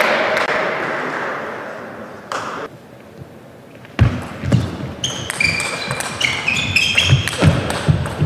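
A table tennis rally: the celluloid ball clicks off rackets and table in quick exchanges starting about four seconds in, with shoes squeaking on the court floor as the players move. In the first two seconds a wash of hall noise dies away.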